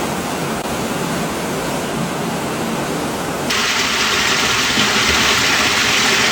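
Floodwater rushing as a steady, loud noise; about halfway through it changes abruptly to a louder, hissier rush.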